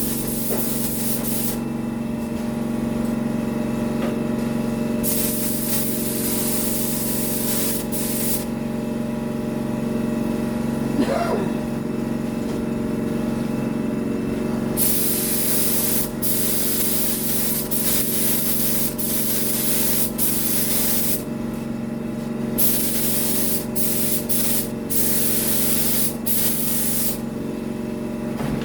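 Compressed-air paint spray gun hissing as a coat of paint is laid down, the hiss starting and stopping as the trigger is pulled and released. It is in long stretches with short breaks in the second half. Under it runs a steady mechanical hum.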